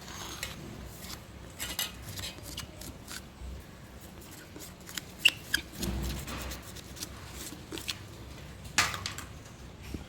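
Spoon clinking and scraping against a cooking dish as spices are tipped in and puffed rice is mixed, with scattered sharp clicks, the loudest about five seconds in and another near nine seconds.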